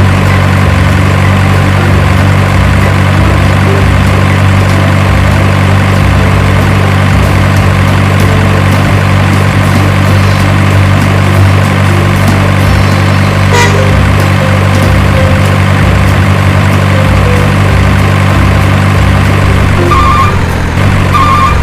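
Heavy truck engine idling steadily with a loud low hum. A repeated high beep starts near the end.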